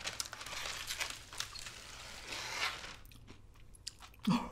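Crisp crunching and crinkling close to the microphone, from chewing and from a sheet of roasted seaweed (gim) being handled; it dies down about three seconds in.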